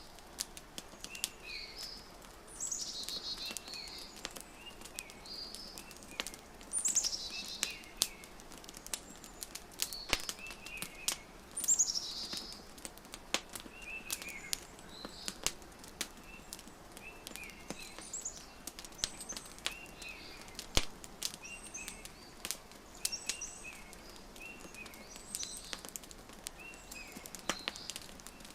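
Wood fire crackling with frequent sharp pops, mixed with birds chirping: short repeated chirps throughout, with a few louder, higher calls about 3, 7 and 12 seconds in.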